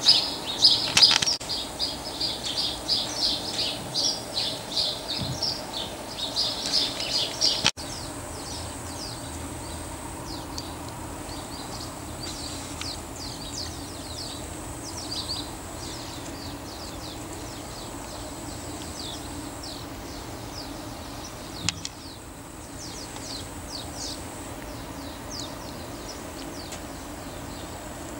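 Small birds chirping in quick, irregular runs of short high notes, loud at first, then fainter and sparser after an abrupt cut about eight seconds in. A steady low outdoor background runs beneath, with a single sharp click about 22 seconds in.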